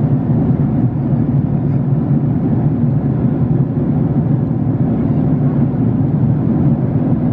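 Steady, even rush of airliner cabin noise from a Boeing 767-300ER in flight: engine and airflow noise, strongest in the low range.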